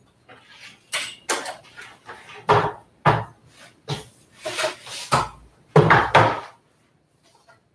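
Household objects being picked up, shifted and set down on shelves: an irregular run of knocks, clatter and rustling, with the loudest knocks about five to six and a half seconds in.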